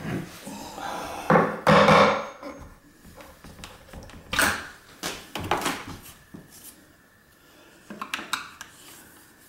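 An awl being pushed into the wooden frame at the bottom of a window to mark a screw hole: scrapes and creaks, loudest and drawn out about a second and a half in, then a sharp knock, more rubbing, and a few light clicks near the end.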